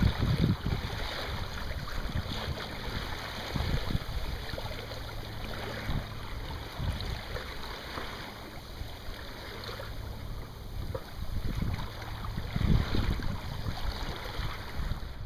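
Water rushing and splashing along the hull of a Hunter Horizon 23 sailing boat under way, with wind buffeting the microphone in irregular gusts.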